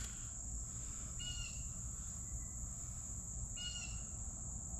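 Steady high-pitched drone of insects, with a bird giving a short chirping call twice, about a second in and again near the end. No gunshot.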